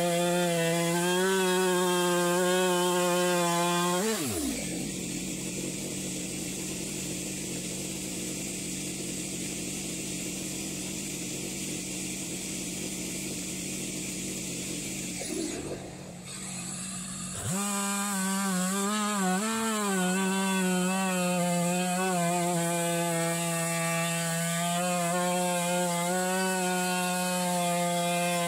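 Chainsaw on an Alaskan chainsaw mill running under load as it rips a small cedar log lengthwise. About four seconds in the engine winds down and stops. After a quieter stretch of some thirteen seconds the saw is running again, under load through the cut, for the last ten seconds.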